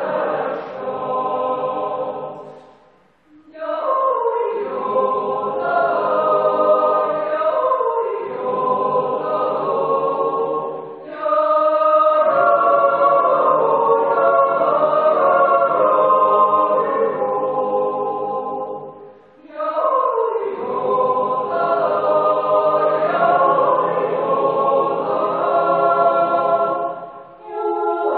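Swiss yodel choir of men's and women's voices singing a cappella in sustained harmony, in long phrases broken by short breathing pauses about every eight seconds.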